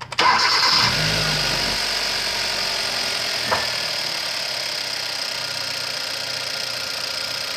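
A 2012 Hyundai Accent's 1.6-litre four-cylinder engine cranks and catches, flaring briefly before it settles into a steady, smooth idle, now running on four new ignition coils that cured its misfire. There is a single sharp click about three and a half seconds in.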